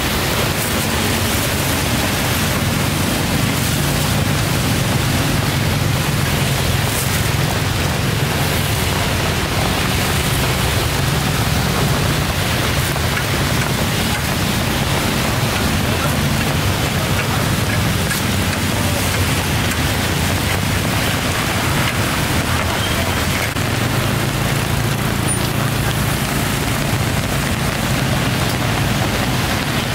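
Steady rain falling, heard as an even hiss, with a low hum of passing motorbike traffic underneath.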